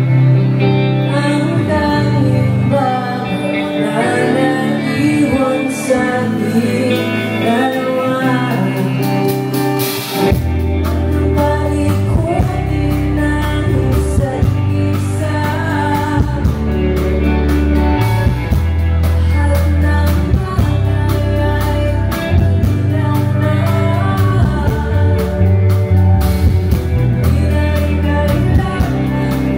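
Live rock band playing, with vocals over electric guitars. About ten seconds in, the bass and drums come in fully and carry a steady beat.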